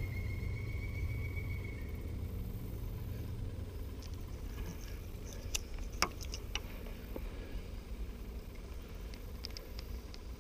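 Fishing tackle being handled: a few short sharp clicks and taps about halfway through and again near the end, over a steady low rumble.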